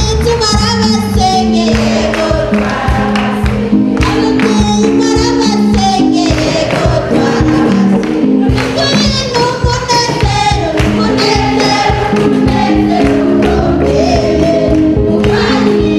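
Choir singing gospel music, with percussion keeping a steady beat and a low line of held notes that moves in steps beneath the voices.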